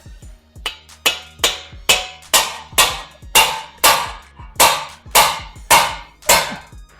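Hammer striking a pickle-fork ball joint splitter, about a dozen sharp metal blows at roughly two a second, driving the fork in to separate a stuck lower ball joint from the steering knuckle.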